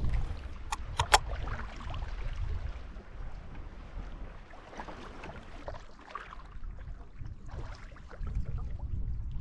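Water splashing and lapping against a canoe as it is paddled, with wind rumbling on the microphone. Two sharp clicks come about a second in.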